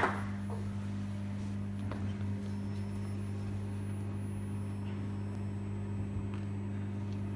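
Steady low electrical hum from the hall's sound system, with a few faint knocks. Applause dies away at the very start.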